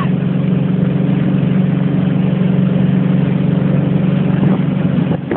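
Motorboat engine running at a steady speed, a constant low hum, over the rush of water from the churning wake.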